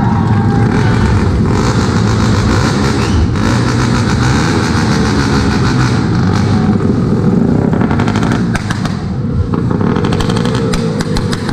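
Motorcycle engine revved hard through a very loud exhaust pipe, with rapid crackling pops from the exhaust.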